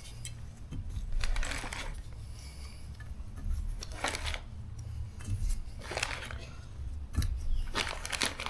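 Valve stem seals being set onto the valve stems of an LS cylinder head and pushed down with a 12 mm socket: a handful of short scrapes and clicks of small metal and rubber parts, over a low steady hum.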